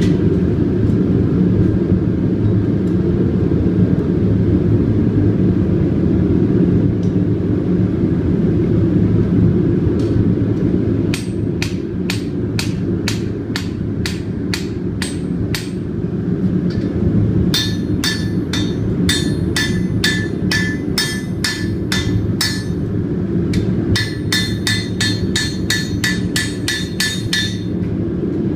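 Hand hammer striking hot iron on an anvil while forging a putter hosel. About a third of the way in, a run of evenly spaced blows begins. Later come two quicker runs of ringing strikes, each several seconds long. A steady low rumble runs underneath.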